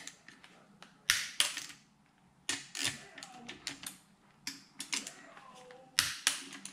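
Torque wrench on engine crankcase bolts being tightened to 25 newton-metres: a string of sharp metallic clicks, several in quick pairs, as the wrench clicks over at its set torque on each bolt.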